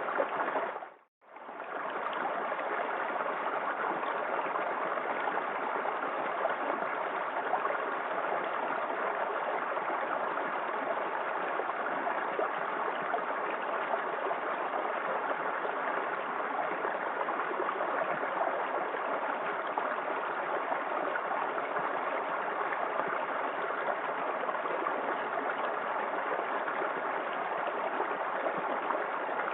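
Small waterfall in a forest creek: a steady rush and splash of falling water. About a second in, the sound briefly fades out to silence and fades back in.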